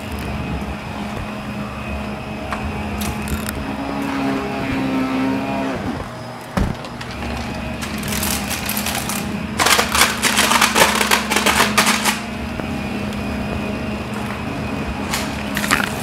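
Blue upright bagless vacuum cleaner running steadily on a hard laminate floor, with a constant motor hum. A knock comes about six seconds in, and a burst of crackling rattles follows from about eight to twelve seconds.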